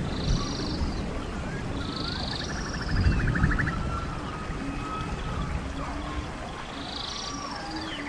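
Forest birds calling: short high chirps, thin gliding whistles, and a rapid trill that lasts about a second, a couple of seconds in. Beneath them runs a steady low rushing of flowing water.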